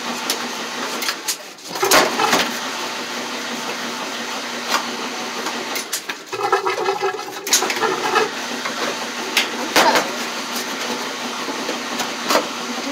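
Hand rubbing and wiping lint off a dryer lint screen, with sharp knocks as its plastic frame is handled, over a steady rushing noise. A short pitched hum sounds about halfway through.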